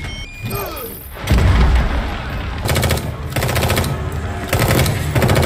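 A heavy boom, then several short bursts of automatic assault-rifle fire, each a rapid string of shots.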